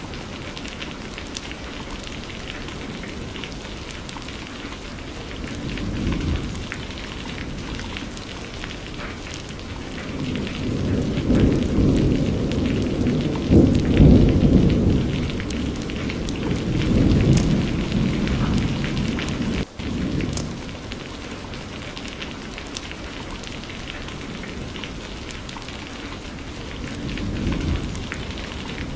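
Steady rain falling, with rolling thunder: a low rumble swells from about a third of the way in, peaks around the middle, and fades again, with a smaller roll near the end.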